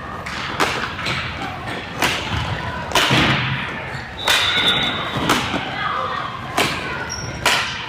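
Field hockey sticks striking the ball in play: sharp cracks about once a second, seven in all, the loudest about three and four seconds in.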